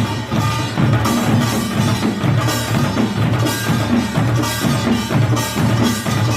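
Korean pungmul percussion ensemble playing a steady driving rhythm. The drums beat low, and the small gong (kkwaenggwari) clangs brightly about once a second.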